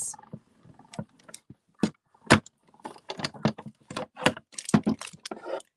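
Hand-cranked cut and emboss machine rolling a sandwich of plastic plates and an embossing folder through, with irregular clicks and clatter of the plates, the loudest a sharp clack a little past two seconds in.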